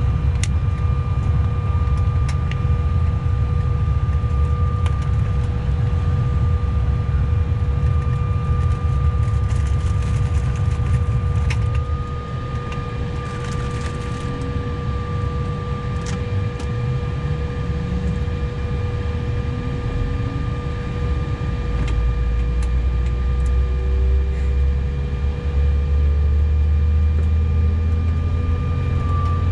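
Cabin sound of a CRJ900 jet: a steady whine with an air rush, then from about halfway a slowly rising whine as a General Electric CF34 engine spools up on start, with a deep rumble building in the last seconds.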